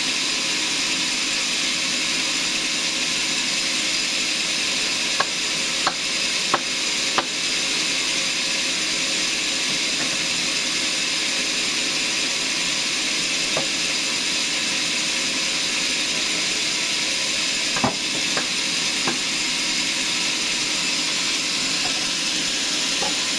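Sawmill saw blade running steadily through a large log, a continuous hissing whine. A few sharp clicks come in two clusters, one about five seconds in and one later on.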